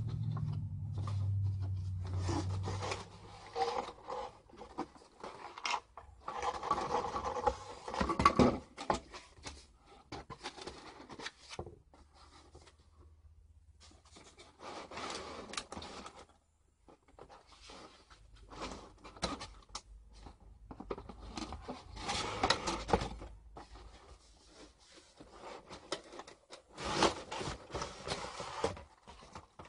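Cardboard and plastic toy packaging being handled and opened by hand: rustling and scraping in irregular bursts, with a brief lull about halfway through.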